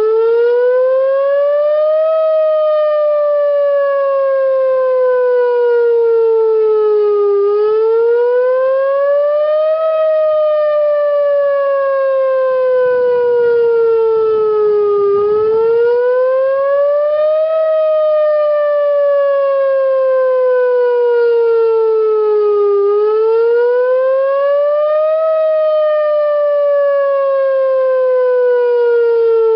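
Whelen WPS-2904 electronic outdoor warning siren sounding a test in a rising and falling wail: the pitch climbs over about two seconds, then falls slowly over about five, four times over.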